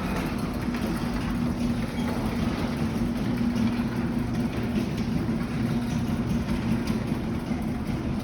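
Old All-O-Matic garage door opener running as it closes the door: a steady mechanical hum with a low, even tone.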